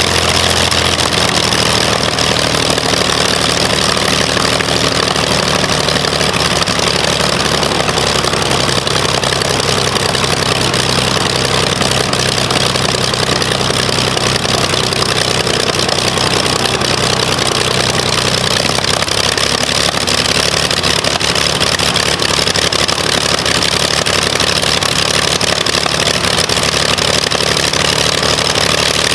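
Rebuilt Lycoming O-540 six-cylinder opposed aircraft engine running on a test stand with its propeller turning, a loud, steady drone. Its engine speed shifts about a second in and again about two-thirds of the way through.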